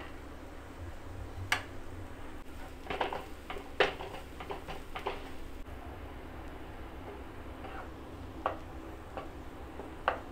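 Chopped carrots tipped from a bowl into a non-stick frying pan and stirred with a wooden spatula: scattered knocks and clicks against the pan, with a quick cluster of them about three to five seconds in.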